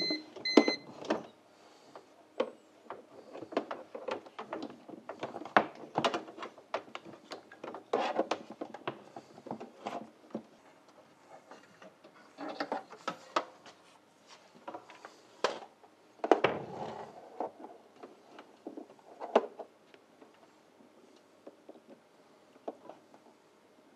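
Irregular knocks, clicks and scrapes of a plastic UPS battery backup and its power cords being handled and set into a wall-recessed network enclosure, with short quiet pauses between bursts of handling.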